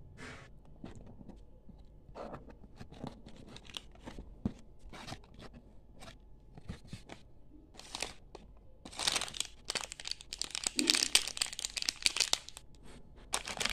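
Scattered rustles and taps as a cardboard box of mini ice cream cones is handled and opened. From about nine seconds in, the individually wrapped cones' plastic packets crinkle densely and more loudly as a hand rummages through them.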